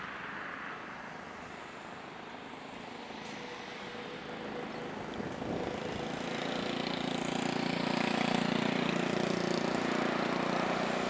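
Airbus A330-900neo airliner with Rolls-Royce Trent 7000 jet engines landing: a steady rush of engine and airflow at touchdown, then the engines grow louder about halfway through with a steady hum as the jet rolls out on the runway.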